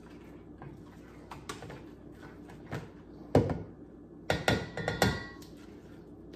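A spatula stirring thick muffin batter with walnuts in a stainless steel mixing bowl: soft scrapes and scattered knocks against the metal, with a sharp knock about three and a half seconds in and a quick run of knocks around four and a half to five seconds that set the bowl ringing briefly.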